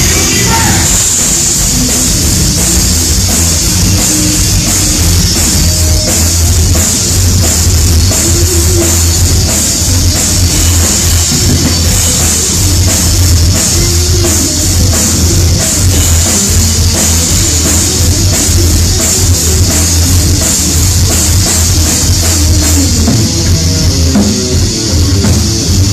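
Heavy metal band playing live and loud, with no vocals: a drum kit beating fast and densely under heavy distorted guitar and bass.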